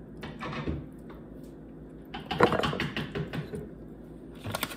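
Handling noises of pizza toppings being placed by hand: rustling and light knocks and clicks in short clusters, the loudest about halfway through.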